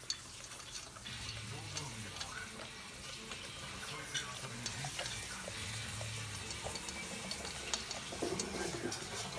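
A Great Pyrenees eating from a stainless steel bowl: steady crunching and chewing, with many sharp clicks and scrapes of food and teeth against the metal.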